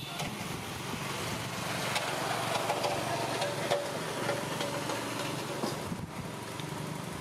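An engine running steadily in the background, with a few light clicks over it.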